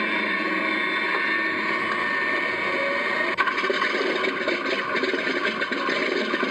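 RC model F4U Corsair's motor and propeller running with a steady whine. About halfway through there is a sharp click, and the sound turns rough and rattling: the motor is failing.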